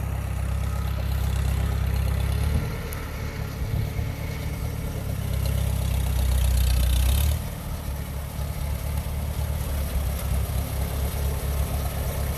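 A 1953 Farmall tractor's engine running while grading a gravel driveway, its level rising and falling with the work. It is louder for the first couple of seconds and again about six to seven seconds in, then settles into a lower, evenly pulsing run.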